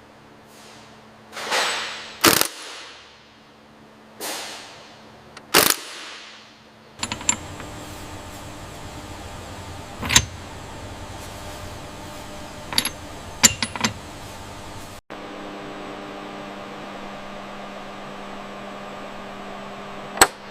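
Two whooshes, each ending in a sharp hit, then a steady hum with a few short clicks and snaps scattered through it.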